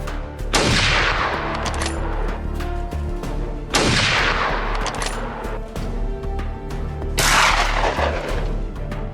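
Three loud gunshots, roughly three seconds apart, each followed by a long tail that sinks in pitch, over background music.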